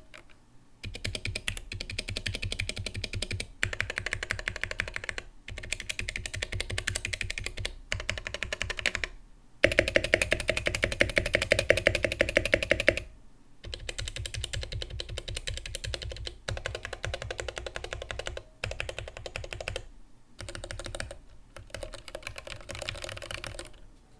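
Mechanical keyboard with Gateron Black Ink linear switches being typed on quickly, in bursts of rapid keystrokes broken by short pauses. The loudest, densest burst comes about ten to thirteen seconds in.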